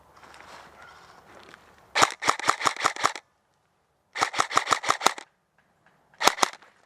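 Airsoft rifle firing three bursts of rapid shots, about seven a second: a burst of roughly eight shots, another of about the same length, then a short burst of two or three shots near the end.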